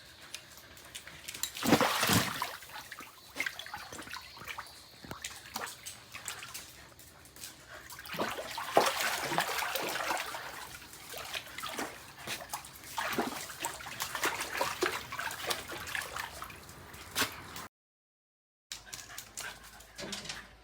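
Shiba Inu whining and yipping in irregular bursts, with water splashing. The sound breaks off into silence for about a second near the end.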